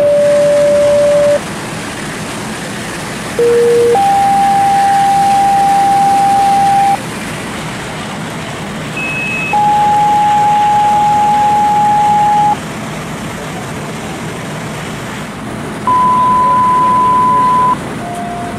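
Fire dispatch two-tone sequential paging tones heard over a radio scanner: several sequences, each a short steady tone followed by a steady tone of about three seconds at a different pitch, toning out more companies for the working fire. A steady hiss of background noise lies between the tones.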